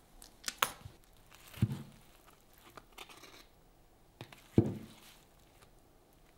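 Food handling: a squeeze bottle sputtering sauce, then a fork digging into crispy loaded fries in a cardboard tray, with crinkling and crunching and two dull thumps, the louder one about four and a half seconds in.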